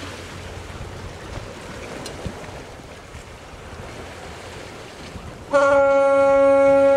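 Wind and sea noise, then about five and a half seconds in a motor yacht's horn starts a loud, steady, held blast as the yacht leaves the harbour.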